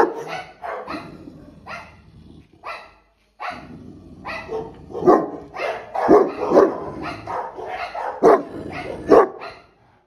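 Large St Bernard stud male barking again and again in short, loud barks, with a brief pause about three seconds in.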